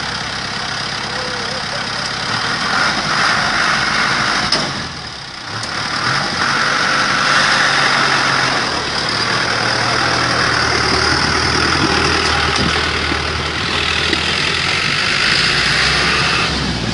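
A vehicle engine idling steadily, with a brief drop in level about five seconds in.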